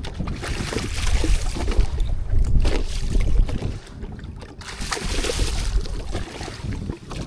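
Wind buffeting the microphone, a steady low rumble, with stretches of rushing hiss about a second in and again near five seconds.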